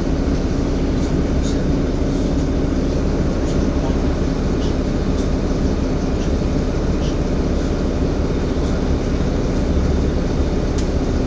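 Inside a Volvo B7LA Wright StreetCar articulated bus on the move: a steady low drone of the engine and running gear with a constant hum over it, and a few brief, faint high squeaks.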